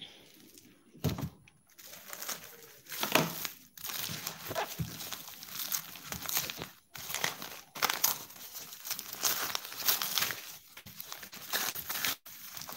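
Plastic wrapping crinkling and tearing as it is handled and opened, in irregular rustles with a few louder crackles.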